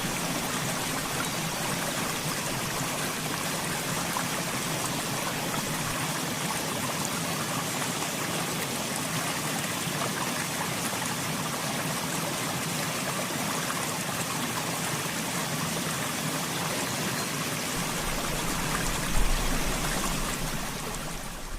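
River water rushing steadily. Near the end there is a low rumble and a single thump.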